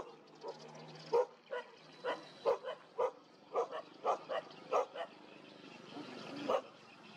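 Stray dogs barking, a string of about a dozen short barks at an uneven pace, then a gap of about a second and one last bark near the end.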